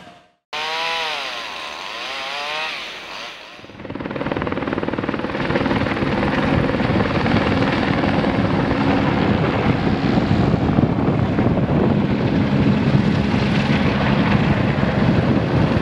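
Helicopter flying overhead, with a steady, rapid rotor chop that starts about four seconds in. Before it comes a short wavering, up-and-down tone.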